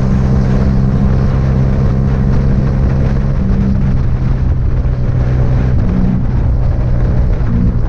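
Motorcycle engine running at a steady pitch, a loud low drone with a rushing noise over it.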